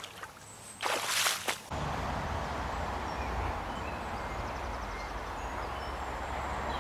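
A short rush of noise about a second in, then steady outdoor background noise with a low wind-like rumble and a few faint bird chirps.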